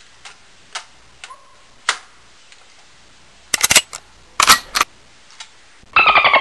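Plastic clicks and clacks from a toy rifle being handled and worked: a few light ticks, then two clusters of loud sharp clacks about three and a half and four and a half seconds in. Near the end a loud, rapidly pulsing buzz begins, falling slightly in pitch.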